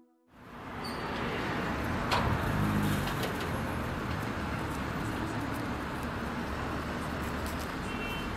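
Outdoor ambience fading in just after the start: a steady wash of distant traffic noise with birds calling, including a dove cooing briefly two to three seconds in.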